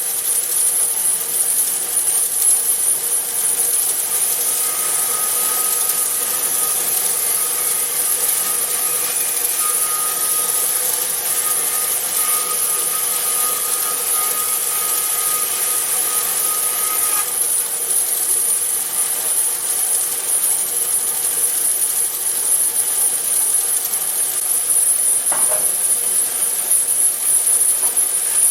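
Large 36-inch resaw band saw, converted to a 3 hp single-phase motor driving through a jackshaft, running steadily and cutting wood. A whine joins the steady hiss about four seconds in and drops away about seventeen seconds in.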